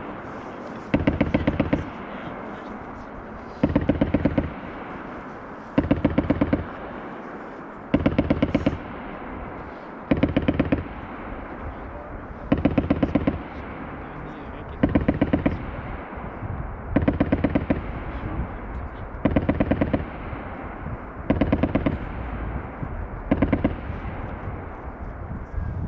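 FN MAG 7.62 mm general-purpose machine gun firing short bursts of about eight to ten rounds each, roughly one burst every two seconds, about a dozen bursts in all. A steady rumble of noise fills the gaps between bursts.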